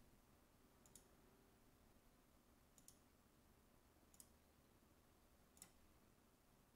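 Near silence broken by four faint computer mouse clicks, a second or two apart.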